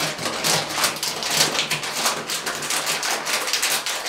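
Flour packet being crumpled and folded shut by hand: a dense run of dry crackling clicks.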